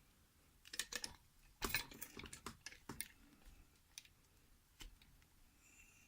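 Scattered small clicks and taps, densest about one to three seconds in, of a lock being handled and settled in a bench vise.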